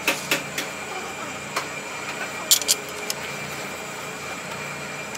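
Light clicks and clinks of a brake lining pad being handled and pressed onto a steel truck brake shoe: a quick run of taps that stops within the first second, then a few scattered clicks, the sharpest pair about two and a half seconds in. A steady machine hum with a constant high whine runs underneath.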